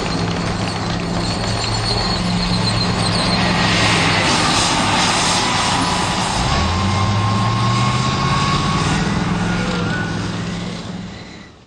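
Leclerc main battle tank driving past at speed: its engine runs with a thin high whine over loud track and running-gear noise. The engine note rises about halfway through, and the sound fades as the tank moves off near the end.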